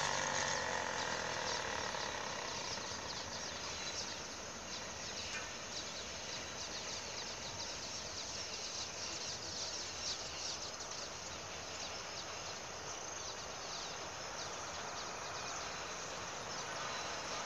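Evening insects, crickets among them, chirping in rapid trills over a steady low background hum. A small engine fades away in the first second or so.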